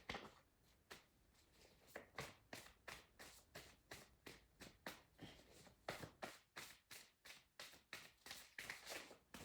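Tarot cards being shuffled by hand: a faint run of short card flicks, coming steadily about three a second after the first second or so.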